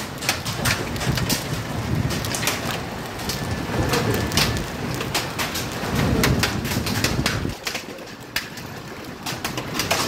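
Steady rain falling, with many irregular sharp taps of drops striking hard surfaces close by over an even hiss. A low rumble comes and goes, loudest about six seconds in.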